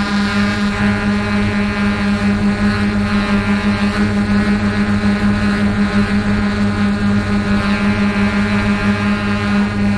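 An engine running steadily at constant speed, a level drone that does not change.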